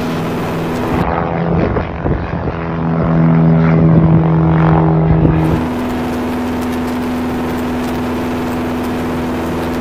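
Piper Archer single-engine propeller plane climbing out after takeoff. About a second in, its engine-and-propeller drone is heard from the ground, growing louder as it passes overhead. From about halfway on, the engine runs as a steady drone at climb power, heard inside the cabin.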